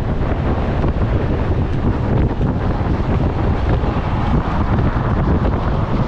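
Steady wind buffeting the microphone of a camera moving along a road, with a low rumble of vehicle and road noise beneath it.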